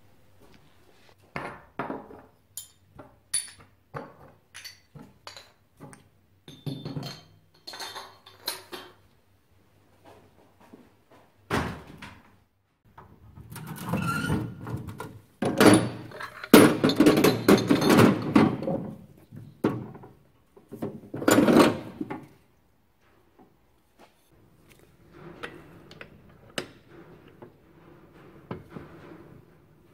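Knocks and clinks of metal shock-absorber parts being handled, then a louder stretch of splashing and scrubbing in a parts-washer tank as the oily parts are washed.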